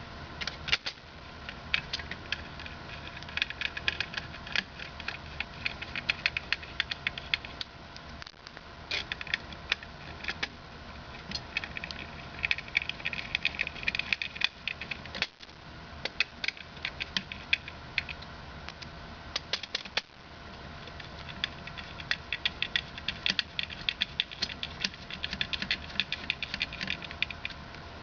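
Small M3x10 screws being driven in by hand with a screwdriver to hold a plastic front lens: rapid, irregular clicking and ticking that comes in runs, with brief pauses a few times.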